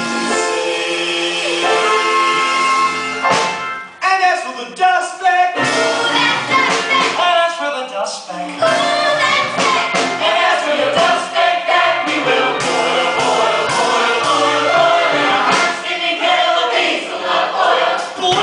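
Musical theatre number: the cast sings as an ensemble with instrumental accompaniment. It opens on held chords, dips briefly about four seconds in, then goes on as busy group singing over a rhythmic backing.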